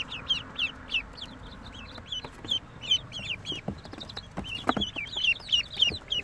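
A boxful of ducklings and chicks peeping: rapid short high calls that fall in pitch, several a second, with a few soft knocks as they move about in the cardboard box.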